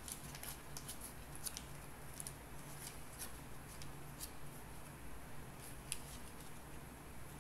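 Red paper-and-foil candy wrapper being opened and unfolded by hand: a faint, irregular scatter of short, sharp crinkles and crackles, one sharper crackle near the end.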